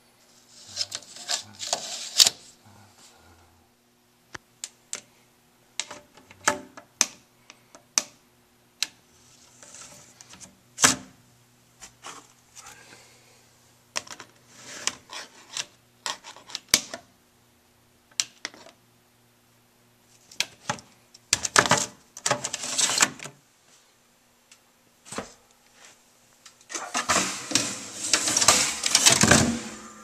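Metal-framed filters of an electronic air cleaner being handled and slid along the cabinet's tracks: scattered clicks and knocks, with two longer stretches of scraping, about 21 and 27 seconds in.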